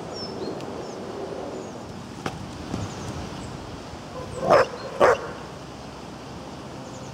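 A dog barks twice, two short loud barks about half a second apart.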